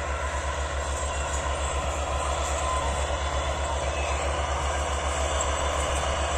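Massey Ferguson 385 tractors' diesel engines working under load as they pull disc harrows: a steady, rapidly pulsing low drone over a wash of noise, a little louder in the second half.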